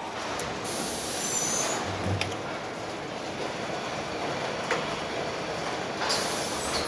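Car-factory machinery noise: a steady industrial din with a few sharp metallic clicks, a low thud about two seconds in, and two short bursts of high hiss like compressed air.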